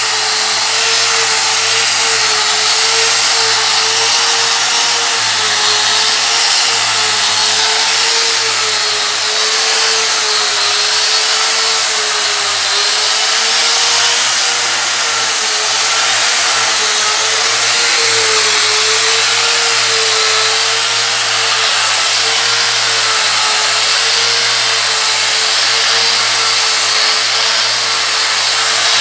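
Electric angle grinder running steadily with a 3000-grit dry resin diamond polishing pad pressed on a marble floor: a constant motor whine that wavers slightly in pitch as it is worked, over the hiss of the pad on the stone.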